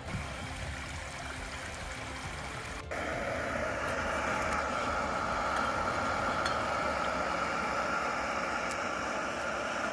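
Steady rush of running water, like a stream. About three seconds in, the sound changes abruptly and becomes louder and brighter.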